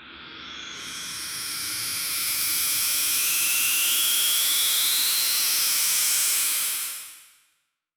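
Combine harvester starting up: a hissing machine sound that builds over a few seconds as a whine rises in pitch, holds steady, then fades out.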